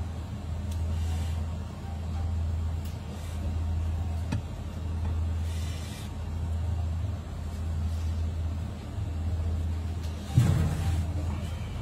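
Steady low machine hum that swells and fades every couple of seconds, with a faint click about four seconds in and a sharp knock near the end.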